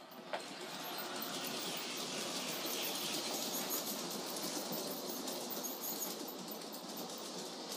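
Lionel O-gauge Amtrak Dash 8 and Superliner model train running on the track after the transformer throttle is turned up: a steady running noise of motor and wheels that starts about a third of a second in.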